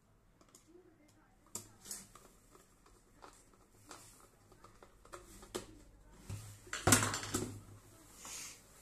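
Handling noise from a stainless steel electric kettle being reassembled: scattered small clicks and taps of a part being fitted to its base, then one loud knock about seven seconds in as the kettle is set upright on the workbench.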